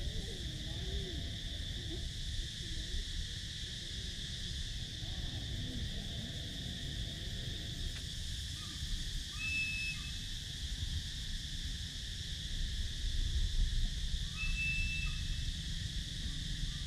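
Forest ambience: a steady high insect drone over a low rumble, with two brief high whistled calls about ten and fifteen seconds in.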